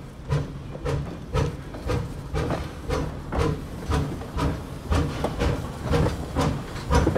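Replica Civil War-era 4-4-0 steam locomotive No. 17 "York" working hard under load, its exhaust chuffing in a steady even rhythm, about two strong beats a second with weaker ones between.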